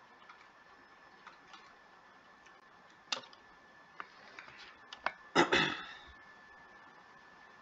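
Scattered light clicks from a computer mouse scrolling through on-screen notes, with a louder short clatter about five and a half seconds in. A faint steady high hum runs underneath.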